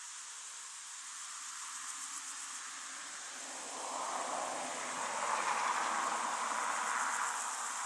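A vehicle passes on a road: its tyre and engine noise swells from about halfway and starts to fade near the end. Underneath, a steady high hiss of insects chirring in the meadow grass.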